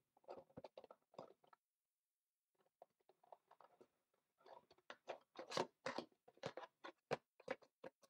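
Thin metal tool scraping and prying inside the flap of a cardboard CPU retail box: quick scratchy, crinkly clicks in two bursts, a short one at the start and a longer, louder one in the second half.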